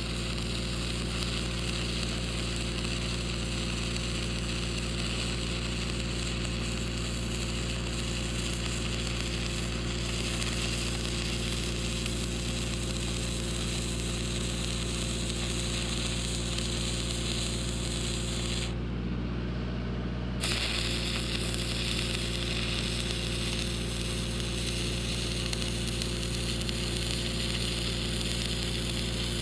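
Stick-welding arc running a 7014 rod, crackling and hissing steadily over the steady drone of a Lincoln SAE 300 engine-driven welder. About two-thirds of the way through, the arc cuts out for a second and a half and then strikes again.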